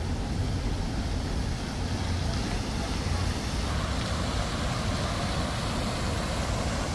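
Steady rumble and rushing noise of a moving vehicle, with no distinct events.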